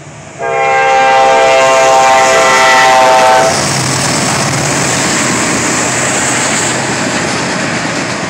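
Norfolk Southern diesel freight locomotive sounding its air horn in one long blast of several notes at once, starting about half a second in and cutting off after about three seconds. Then the locomotive and its intermodal cars rumble and clatter past close by.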